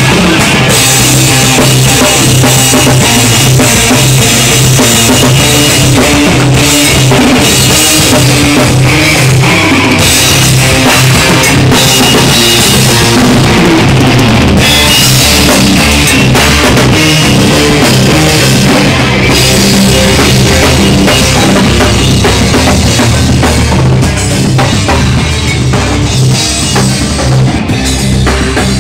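Heavy metal band playing live: distorted electric guitars over a pounding drum kit with bass drum and crashing cymbals, very loud and overdriven on a phone's microphone.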